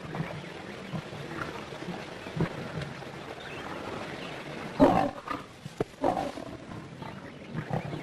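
A lioness growling in short rough bursts over a steady low background hiss. The loudest growl comes about five seconds in, with a few softer ones around it.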